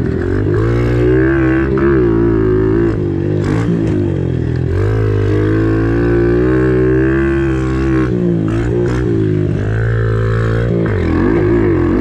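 Kawasaki KLX110 pit bike's single-cylinder four-stroke engine being ridden, revving up and down with its pitch rising and falling on the throttle. It dips briefly about four seconds and eight seconds in.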